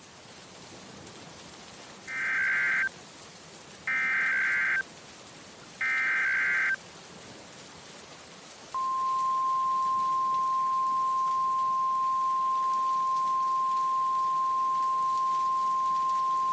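Emergency Alert System SAME header: three short bursts of warbling data tones, about two seconds apart. About nine seconds in, a steady single-pitch attention tone of the NOAA Weather Radio kind begins and holds, all over a steady hiss. The tones herald an urgent tornado warning message.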